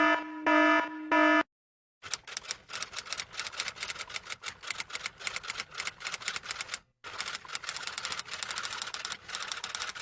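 Typing sound effect: rapid, irregular keystroke clicks like a typewriter or keyboard, with a brief pause about seven seconds in. Before it, in the first second and a half, come a few short pitched beeps.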